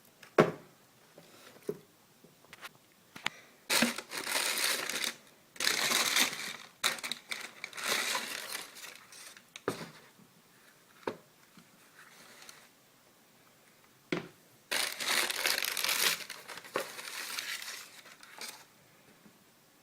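Shoe box being opened and handled: sharp clicks and knocks of the cardboard, with several bursts of paper wrapping crinkling and rustling as it is pulled back, the longest near the end.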